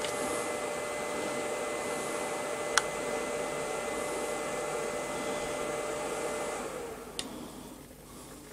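A small electric motor or fan running steadily with a faint whine, then winding down and stopping about seven seconds in; two light clicks, one near three seconds in and one as it stops.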